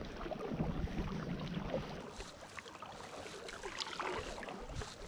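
Double-bladed kayak paddle strokes: the blades dipping into calm lake water with light splashes and drips. A soft low rumble runs through the first two seconds.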